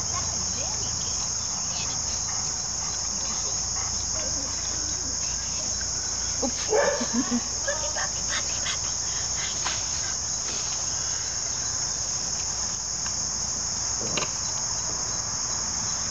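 Steady, high-pitched insect chorus, such as crickets, running without a break. A brief louder sound breaks in about seven seconds in.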